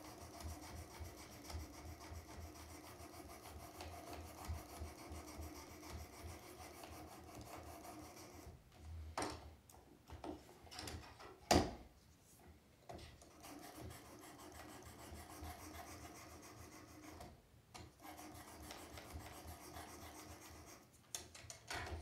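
Faint steady scraping of an 800-grit diamond sharpening plate stroked by hand along a small Swiss Army knife blade clamped in a Work Sharp Precision Adjust, with a few sharp knocks partway through and near the end.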